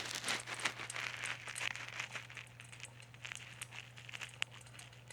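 Someone drinking water, with light crinkling and clicking handling noises. The clicks come thickly for the first couple of seconds, then more sparsely.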